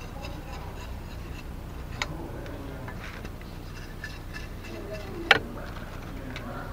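Thin split bamboo strips rustling and clicking as they are handled and worked with a heavy machete-like blade, with a sharp click about two seconds in and a louder, sharper knock a little past five seconds.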